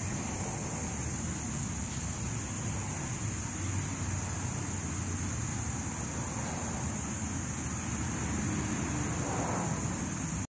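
Steady outdoor background noise: a constant high hiss over a low rumble, with no distinct calls or events. It cuts out abruptly at the very end.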